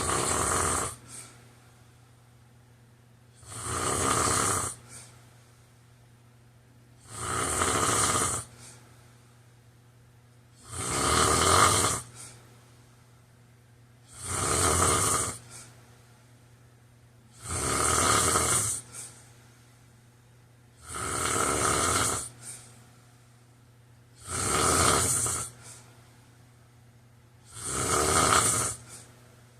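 A person snoring in deep sleep, a loud rasping snore about every three and a half seconds, each followed by a brief faint sound. A faint steady low hum runs beneath.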